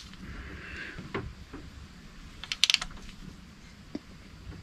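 Torque wrench clicking as exhaust manifold bolts are snugged down: a few scattered sharp clicks, with a short cluster of clicks a little past halfway.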